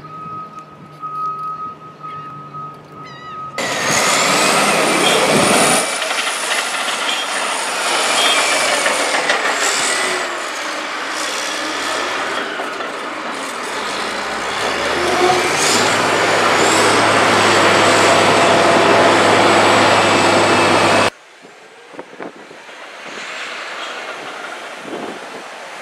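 Bulldozer working on the beach: its engine running under load with loud noise and high squeals and clanks of heavy machinery, starting a few seconds in and cutting off suddenly near the end, leaving quieter outdoor background.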